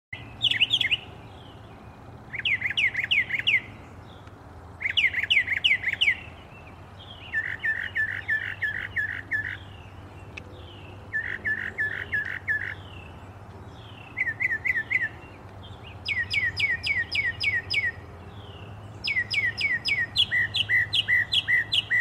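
A songbird singing clear whistled phrases, about eight in all, each a quick run of repeated down-slurred notes lasting a second or two with short pauses between. The notes become flatter and lower about a third of the way through, then steep down-slurs return.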